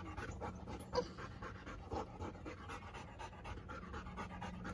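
A dog panting quickly and steadily, with one sharper, louder sound about a second in.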